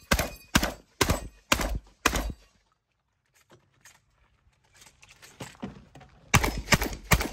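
Shotgun fired in rapid strings: about five shots at roughly two a second, then a pause of about four seconds with faint clicks of shells being loaded, then fast fire again at about three shots a second.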